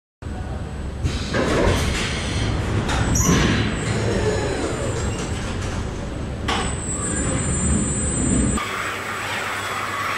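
Car body-shop machinery: industrial robots and pneumatic fixtures working on a car body, a steady mechanical din with clanks and knocks. A high, thin hiss joins in about six and a half seconds in, and the sound changes abruptly about eight and a half seconds in.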